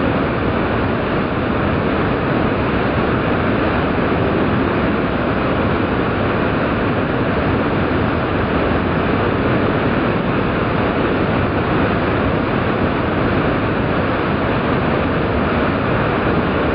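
Steady rush of a waterfall, a broad sheet of water spilling over a wide ledge into a churning pool, with no let-up.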